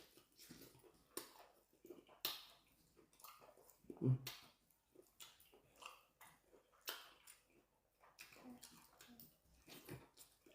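Chewing and wet mouth smacks while eating, a scatter of short irregular clicks, with a brief low voice sound about four seconds in.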